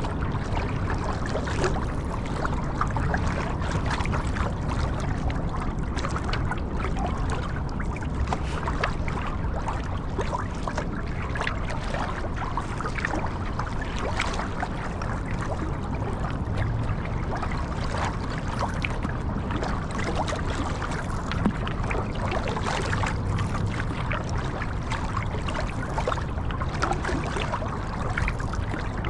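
Water splashing and trickling around a paddleboard on a river, many small irregular splashes over a steady low rumble.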